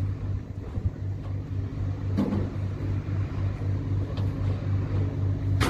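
Diesel truck engine idling: a steady low throb, about five pulses a second. A short thump comes a little over two seconds in, and a sharp click at the very end.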